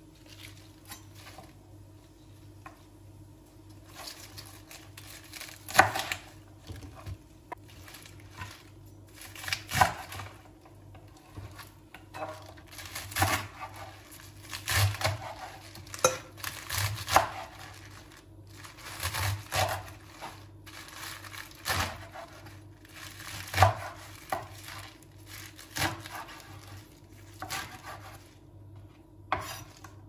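Chef's knife chopping fresh spinach on a wooden cutting board: clusters of sharp knocks of the blade on the board every couple of seconds, with the leaves rustling. For the first few seconds there is only quieter rustling as the leaves are gathered.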